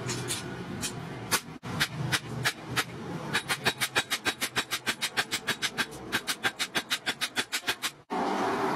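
Hand hammer striking a steel knife blade, made from a drilled disc brake rotor, on a steel anvil: a few spaced blows, then a fast even run of sharp metallic strikes at about six a second, cut off abruptly just before the end.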